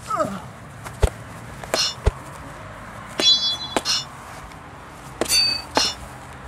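Foam swords clashing in a sword fight: a string of about seven sharp hits, a few of them with a short high ring.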